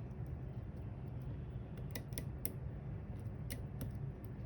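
Lock pick and tension wrench working the pins of a twin-row Chinese pin tumbler lock clamped in a vise: a handful of light clicks, mostly about halfway through and a little later, over a steady low hum.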